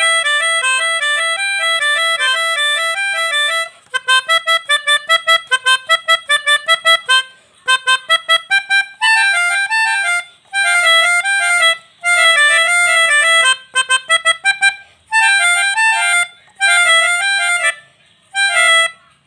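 Melodica (pianika) played in short melodic phrases that imitate the tunes of basuri multi-tone truck and bus horns. The phrases are separated by brief gaps, with a run of rapid short repeated notes partway through.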